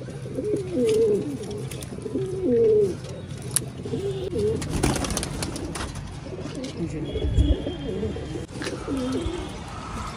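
Domestic pigeons cooing from the loft: several warbling, rising-and-falling coos, loudest in the first few seconds and fainter and sparser later. A few short clicks and rustles come near the middle.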